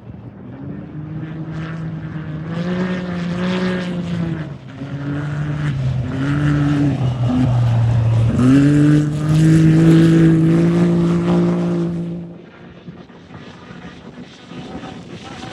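Off-road race UTV engine running hard as the vehicle comes up and passes. Its pitch dips and climbs with throttle and gear changes. It is loudest in the middle and falls away sharply about twelve seconds in.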